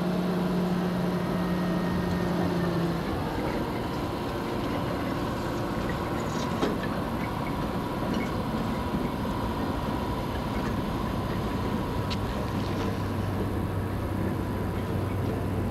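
Diesel-hydraulic shunting locomotive NB30 running as it pulls a rake of open wagons away through a yard. Its engine note changes about three seconds in and a steady whine then holds, with a couple of sharp clanks midway and later.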